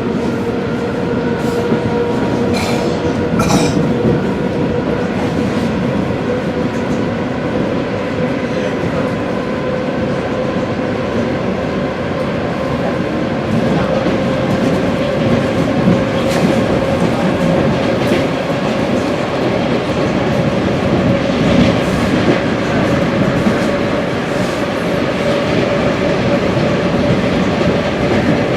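ED4M electric commuter train running at speed: a steady rumble of wheels on rail with scattered sharp clicks over rail joints. A steady whine from the traction drive rises slowly in pitch.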